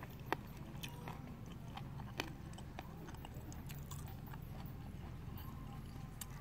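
A few faint, scattered clicks of a metal spoon against a ceramic plate as it scoops food, over a low steady hum.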